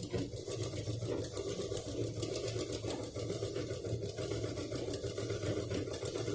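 Domestic sewing machine running steadily at an even speed, stitching a seam along a zip.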